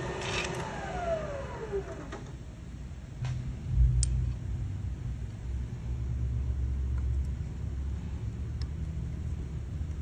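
Milling machine spindle motor coasting to a stop after power-tapping a hole, its whine falling in pitch over about two seconds. A few seconds in, a low rumble sets in, with a few light clicks.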